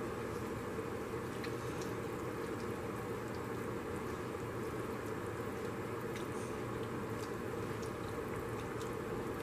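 A large pot of seafood-boil broth boiling on the stove: steady bubbling with scattered small pops.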